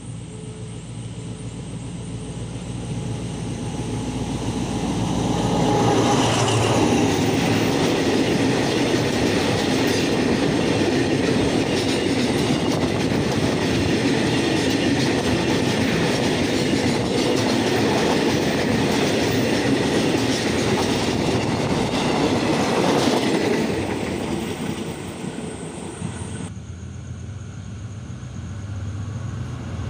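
Freight train approaching and running through a station: a rolling rumble that builds over the first few seconds, then the dense rattle and clatter of wagon wheels over the rails until it fades after about twenty seconds. Near the end the sound changes abruptly to a quieter low rumble of another train approaching.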